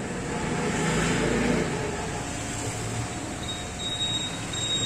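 Street traffic noise, with a passing vehicle swelling about a second in and then fading. A thin high whine appears near the end.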